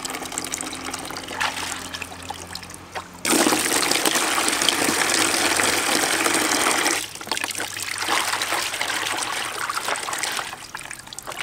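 A stream of water pouring into a half-full plastic basin: a light trickle at first, then a strong splashing pour from about three seconds in that drops away at about seven seconds. Near the end a hand swishes through the water in the basin.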